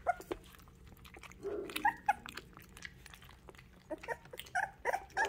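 A litter of young puppies eating soaked kibble from a stainless steel feeding dish: chewing, with many small clicks of teeth and food on the metal. From about four seconds in, one or more puppies let out a run of short high-pitched whimpers.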